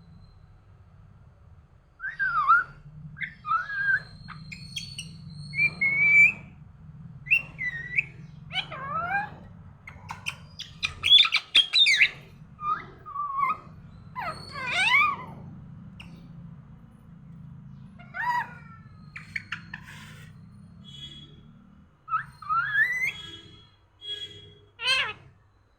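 Pet parrot giving a string of short calls and whistles, many sliding in pitch, with short pauses between them, over a faint steady low hum.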